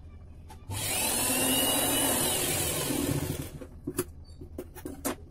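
Sewing machine running and stitching a folded hem: a single run of about three seconds that starts about a second in and stops, followed by a few light clicks as the fabric is handled.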